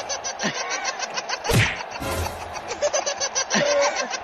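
Laughter in rapid, continuous pulses, over a batsman taking a ball to the groin. A short, loud rush of noise comes about one and a half seconds in.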